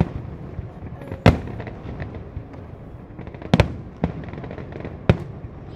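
Aerial fireworks bursting: about five sharp bangs at irregular intervals of one to two seconds, the loudest about a second in, over a continuous rumble.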